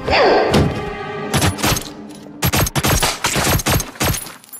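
Rapid rifle gunfire: dense bursts of shots from about a second and a half in, with music under them.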